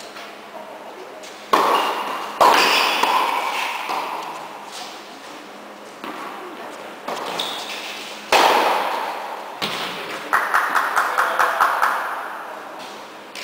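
Tennis balls struck by rackets, echoing in a large indoor tennis hall: two sharp hits about a second apart, another a few seconds later, then a quick, even run of about eight lighter knocks near the end.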